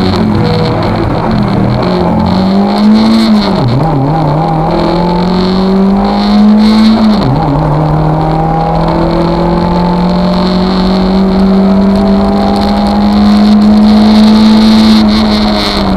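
Lada VFTS rally car's four-cylinder engine heard from inside the cabin, pulling hard under full throttle. Its note climbs, drops sharply as the driver shifts up, about a third of the way in and again about halfway through, then rises slowly through a long pull in the higher gear.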